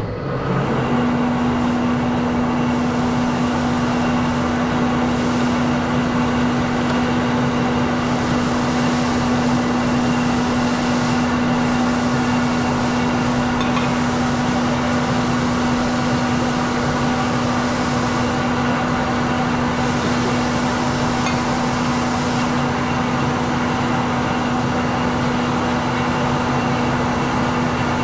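Marvel 8-Mark-1 vertical bandsaw switched on, starting suddenly and then running steadily with a constant hum. Its coolant pump, not wired to its own switch, runs whenever the blade runs.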